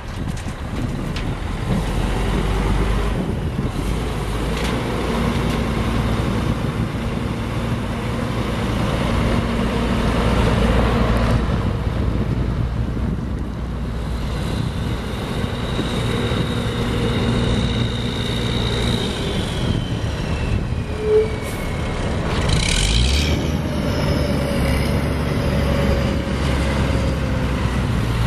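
Caterpillar C12 inline-six turbo diesel of a Sterling L9500 dump truck running as the truck drives off and pulls around. A high whistle glides down in pitch around the middle, and a short hiss of air comes about 23 seconds in.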